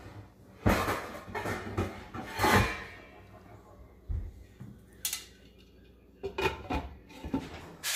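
A glass pot lid with a metal rim being fetched from a drawer and set on a large cooking pot: a handful of separate clanks and knocks of metal and glass, with a drawer sliding.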